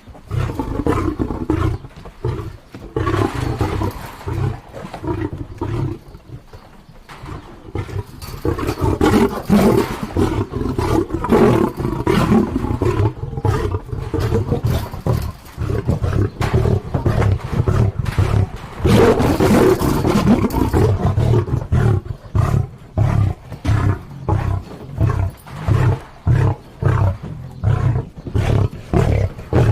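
Lion roaring: long, deep, loud calls, then a run of short repeated grunts, a little under two a second, through the last third.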